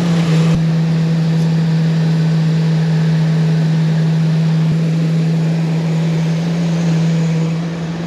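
Ford E-250 van engine, just put back together, idling steadily with a constant low hum.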